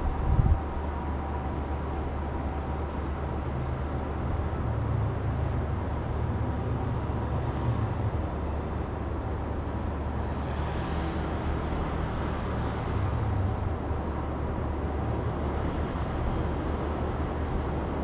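Steady low rumble of city traffic, with a short low thump about half a second in and a motor scooter passing about ten seconds in.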